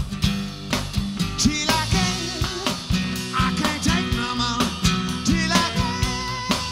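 Live rock band of electric guitar, bass, harmonica and drums playing an instrumental passage with a steady drum beat and bending lead lines, with no singing.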